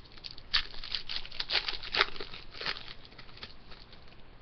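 A trading card pack being handled and opened: the wrapper crinkles and tears in a run of short, sharp rustles, and the cards slide against each other.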